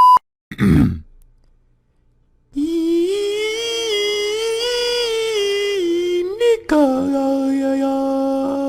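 A person humming: a short wavering tune, then one long steady note held about two seconds in from the end. A brief falling sweep comes just before it, about a second in.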